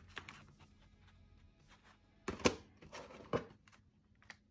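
Plastic 3.5-inch floppy disks clicking and clattering as they are picked up and gathered into a stack in the hand: a handful of short knocks, the loudest about two and a half seconds in.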